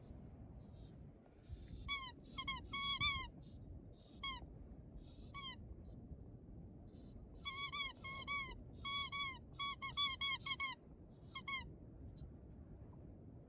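A greyhound chewing a squeaky cat toy, setting off rapid runs of short, high squeaks: one flurry about two seconds in and a longer, denser run through the second half.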